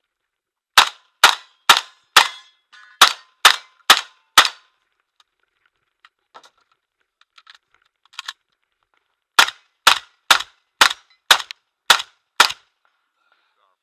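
Saiga 12 semi-automatic 12-gauge shotgun with a muzzle brake firing in rapid strings, about two shots a second: eight shots, then a gap of several seconds with a few faint metallic clicks and clanks, then seven more shots.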